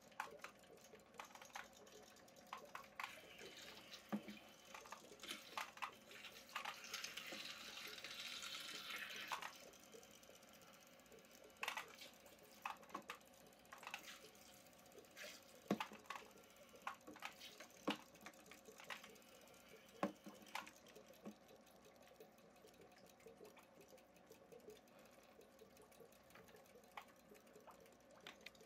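Faint water sounds from a small aquarium: light splashing and drips at the surface with scattered sharp clicks, and a denser splashing hiss from about three to nine seconds in.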